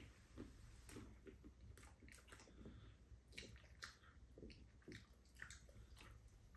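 Quiet eating sounds: two people chewing cake with soft mouth smacks, and spoons clicking and scraping in ceramic bowls as they scoop it up.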